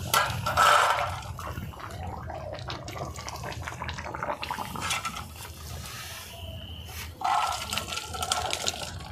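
Thick potato curry (alur dum) sloshing as it is tipped from a kadai into a metal bowl. The sloshing is loudest about a second in and again near the end, with small clicks and knocks of metal throughout.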